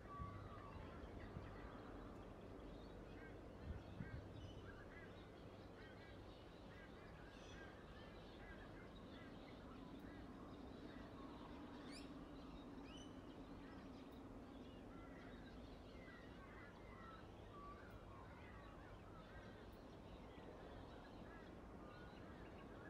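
Near silence, with faint birds chirping in the background throughout and a couple of soft knocks in the first few seconds.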